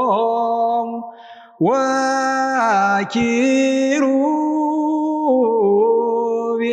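Solo unaccompanied male voice chanting an Ethiopian Orthodox Ge'ez werb, drawing each syllable out into long held notes that step slowly between pitches. There is a short breath about a second in, then a new sustained phrase.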